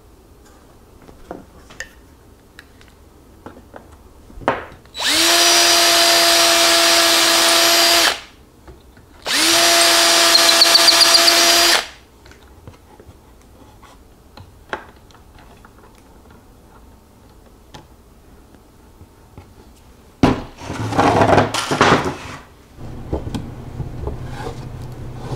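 Cordless drill run twice at a steady speed, about three seconds each, working on a plywood drawer front clamped to its drawer box. Near the end comes a burst of wooden knocking and sliding as the drawer is pushed into its cabinet opening.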